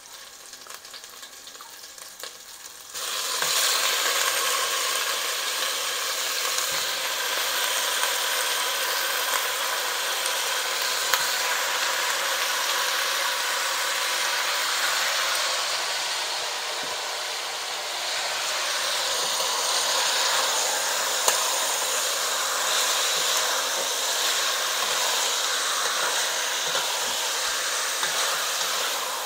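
Raw chicken pieces sizzling loudly in hot oil with sautéed garlic and onion in a stainless steel pot. The sizzle starts suddenly about three seconds in as the chicken goes in, then holds steady, with a few sharp clicks of a spoon stirring.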